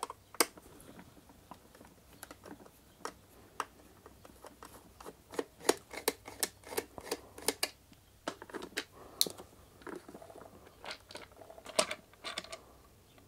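A screwdriver working the screws out of a Kenwood food chopper's plastic base: irregular small clicks, ticks and scrapes, busiest in the middle. Near the end come sharper plastic clicks as the case is gripped and eased apart.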